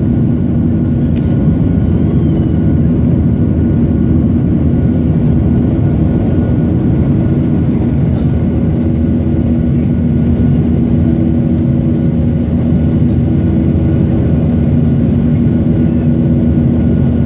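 Cabin noise inside a Boeing 737 climbing out after take-off: the steady drone of the jet engines and rushing airflow, with a constant low hum running under it.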